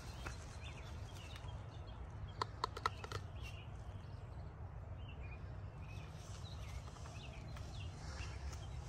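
Footsteps crunching through dry fallen leaves, with a few sharp crackles about two and a half to three seconds in, over a steady low rumble.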